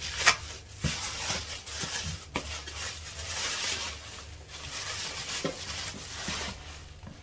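Thin plastic bag rustling and crinkling as a cast iron pot is pulled out of it, with scattered sharp crackles, the loudest just after the start.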